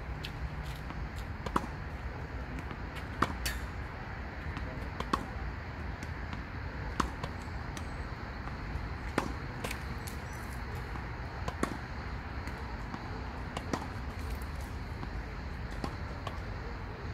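Tennis rally: sharp racket-on-ball hits about every two seconds, with fainter ball bounces on the hard court between them, over a steady low rumble.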